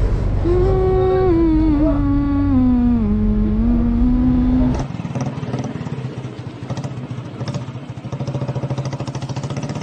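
A long held note slides slowly down in pitch for the first half. Then, about five seconds in, a motorcycle engine takes over, idling with a rapid, even pulse.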